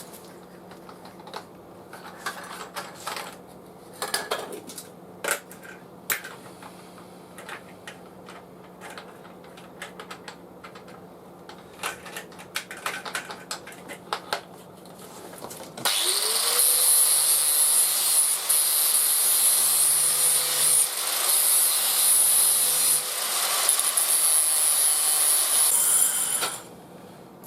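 Light clicks and taps of small parts being handled. About halfway through, a small electric power tool spins up quickly, runs steadily for about ten seconds, then stops.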